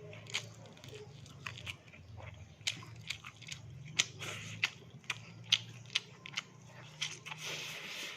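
Close-miked eating of crispy fried fish with rice: irregular sharp crunches and wet mouth clicks, a dozen or more, over a low steady hum.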